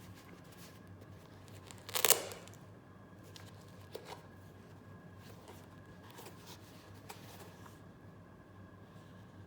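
Shoe-box packaging being handled: a short, loud rustle of paper about two seconds in, then a couple of small clicks and faint light rustling.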